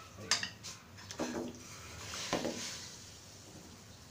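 Pieces of beef liver put into a saucepan of just-boiled water: a sharp clink about a third of a second in, then a few short splashes and clatters.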